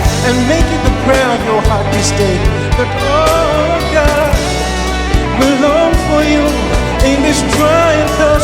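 Gospel song with band accompaniment: a steady bass, drums and a melodic lead over them.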